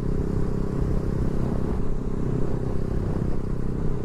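Yamaha MT-15's single-cylinder engine, fitted with an Akrapovic exhaust with its dB killer removed, running steadily at a light cruise in fifth gear.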